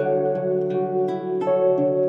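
Background music: plucked notes, each ringing on, over a steady low drone.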